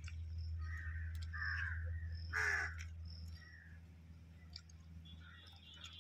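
Crows cawing several times, the loudest caw about two and a half seconds in, over a steady low hum.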